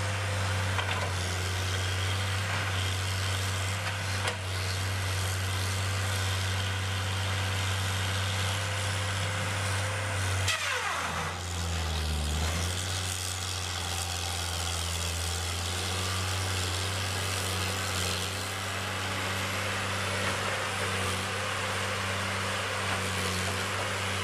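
An engine running steadily at constant speed. About ten seconds in, a sound sweeps down in pitch while the engine note dips briefly, then it settles back.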